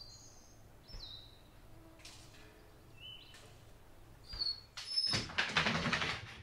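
A few short, high bird chirps with falling pitch over quiet room tone, then from about four and a half seconds in a louder stretch of scuffling and clattering as an excited dog jumps up at the cabin door.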